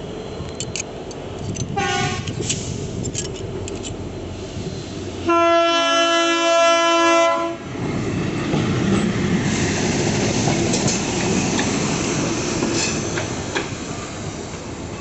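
Yellow railway track-maintenance machines running along the rails: a short horn toot about two seconds in, then a loud horn blast lasting a little over two seconds near the middle. After it, the rumble and wheel clatter of a machine passing close.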